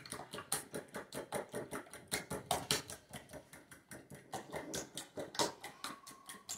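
A fork beating raw eggs in a small ceramic bowl, its tines clicking quickly against the bowl at about five or six strokes a second.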